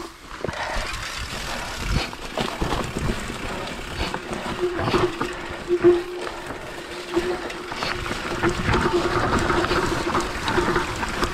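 Hardtail mountain bike riding fast downhill on a dry dirt trail strewn with bamboo leaves: tyres rolling over leaves and dirt, with frequent knocks and rattles from the bike over bumps and a low rumble of wind on the camera's microphone. From about four seconds in, a steady buzzing tone runs underneath.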